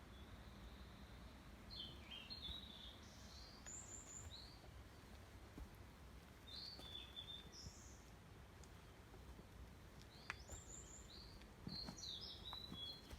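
A songbird singing faintly in three short phrases of high, quick chirps and trills, over a low, quiet background hush.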